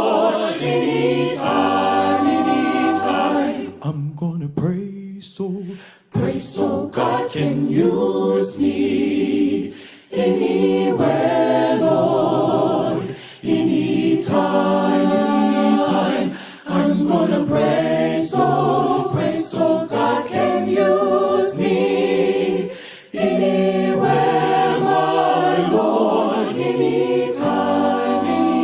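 A cappella gospel vocal ensemble singing in close harmony, in phrases a few seconds long with brief breaks between them.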